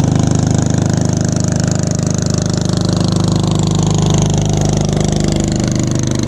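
A small engine running steadily, at an even speed, with a fast regular pulse.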